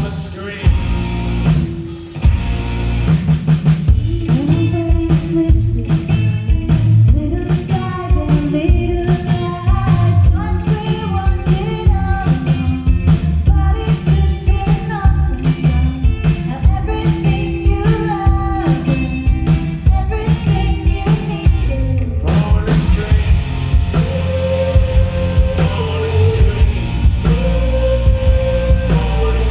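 Rock band playing a song live, with singing over drums, bass and guitar; the arrangement shifts to a new section about three quarters of the way through.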